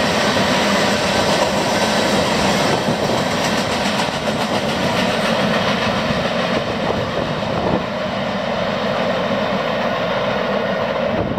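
Freight cars of a long mixed freight train rolling past close by: steel wheels on rail making a steady rumble with a clickety-clack, easing a little as the end of the train passes.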